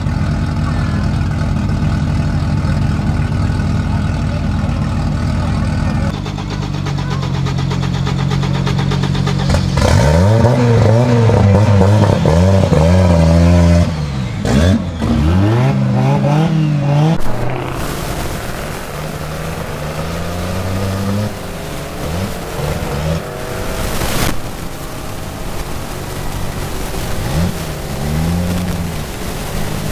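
Tuned Audi Ur Quattro's turbocharged five-cylinder engine idling, then revved in a quick series of throttle blips about ten seconds in, before settling back to a lumpy idle with another couple of blips near the end.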